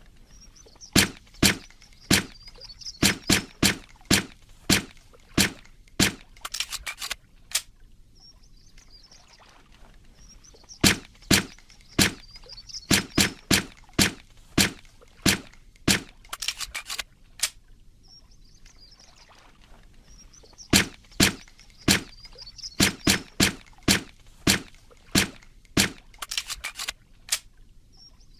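Suppressed Walther PPK pistol shots: sharp, clipped cracks rather than full-volume bangs. Each sequence has a dozen or so single shots, then a quick run of several. The same sequence repeats three times about ten seconds apart.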